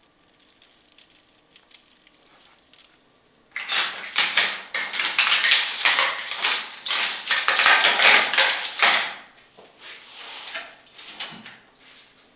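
Hands tossing and mixing seasoned cubes of raw meat on a large metal tray. It is a dense run of wet rustles and small knocks that starts about three and a half seconds in, is loudest until about nine seconds, then eases off.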